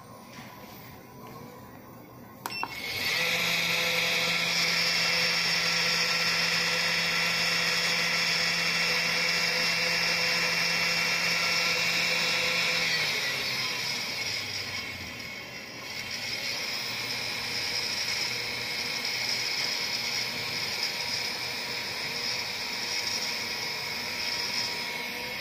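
Air-cooled 400 W brushless DC CNC spindle motor switching on about two and a half seconds in and running with a steady high whine. Halfway through its speed is changed: the pitch slides down and it settles at a new steady speed.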